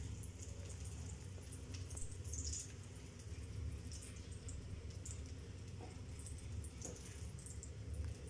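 Soft, scattered crackling and ticking of hot oil on freshly deep-fried vermicelli nests, over a low steady hum.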